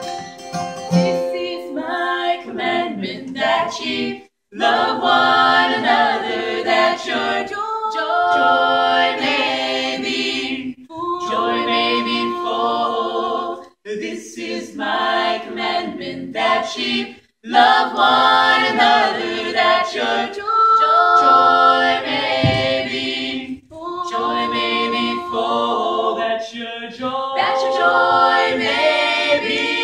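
Unaccompanied gospel singing in close harmony by a small mixed group of men's and women's voices, sung in phrases with short breaths between them.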